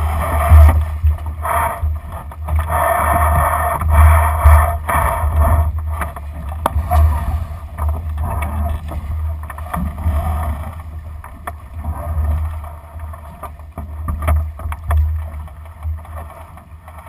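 Water rushing and washing along the hull of a Lightning sailing dinghy under way, over a pulsing low rumble of wind on the microphone, with scattered light knocks of rigging and gear. The rush eases over the second half.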